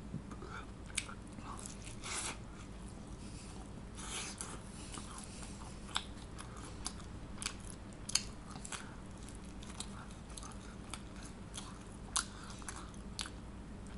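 A person biting and chewing pizza, with soft crunches and small mouth clicks coming irregularly throughout.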